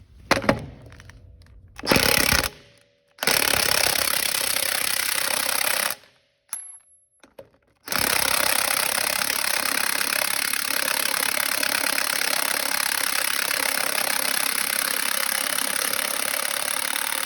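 Snap-on 3/4-inch brushless cordless impact wrench with a 33 mm socket hammering semi-truck wheel lug nuts loose. It fires in two short bursts, then runs for about three seconds, stops with a few clicks, and near the middle starts a long unbroken run of about ten seconds on a tight nut.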